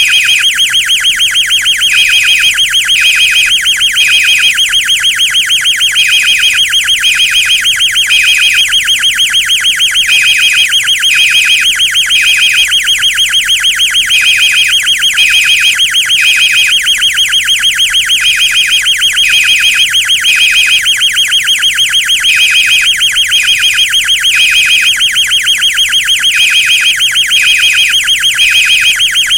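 Fire alarm sounding continuously: an electronic horn with a fast, steady pulse, overlaid by a second beeping tone in groups of three with a pause (the temporal-three evacuation pattern), the cycle repeating about every four seconds. Loud and unbroken throughout.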